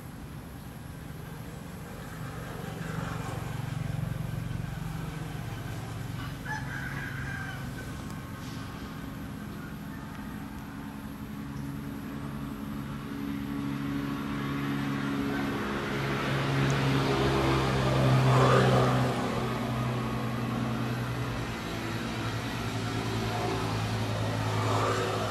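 Outdoor background sounds: a rooster crowing, with a motor engine running and a vehicle passing, loudest about 18 seconds in.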